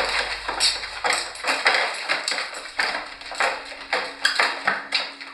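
A rapid, irregular series of sharp knocks, about three a second, over a low hum that fades out partway through.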